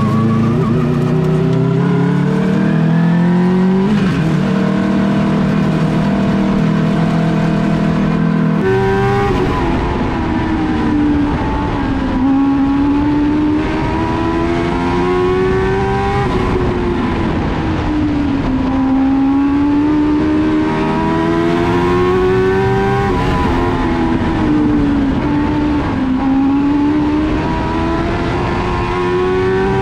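Race car engine at full throttle during a qualifying run. It winds up over the first several seconds, then rises as the car accelerates down each straight and drops as the driver lifts into each tight turn, about every seven seconds.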